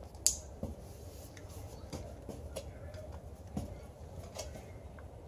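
One sharp click about a third of a second in, then a few faint scattered taps and clicks, as a toddler handles a pen around the handlebar and bicycle bell of a ride-on trike.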